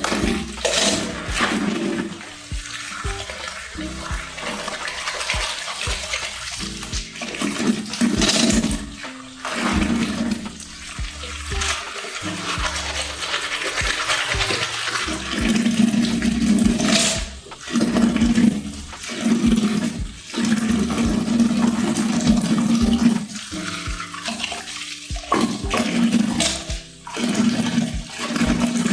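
Plastic keycaps being swished and washed by hand in a bucket of soapy water, with repeated sloshing surges.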